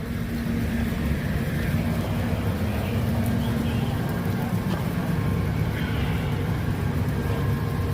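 A large engine running steadily, a low, even rumble with a constant hum.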